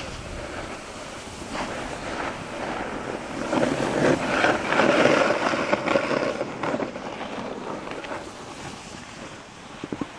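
Wind buffeting the phone's microphone, mixed with the hiss and scrape of snowboards sliding over snow. The rushing noise swells louder for a few seconds in the middle, then eases off.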